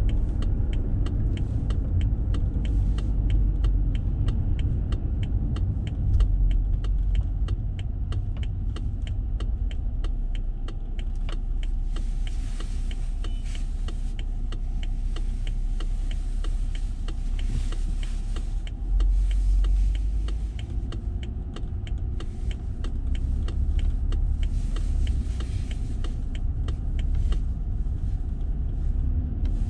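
Road and engine noise inside a moving car: a steady low rumble, with light regular ticks at about three a second running through it.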